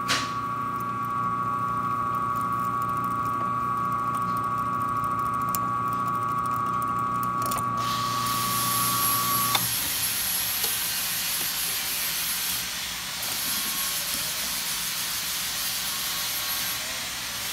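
Drill press running, its motor giving a steady hum and whine while the bit drills into a stainless steel rail lubricated with cutting oil. The motor tones stop about halfway through, leaving a steady hiss.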